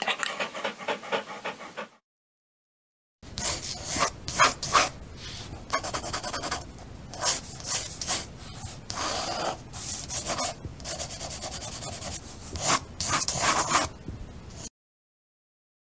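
A dog panting quickly for about two seconds. After a short silence comes pencil scribbling on paper: quick scratchy strokes that go on for about eleven seconds, then stop.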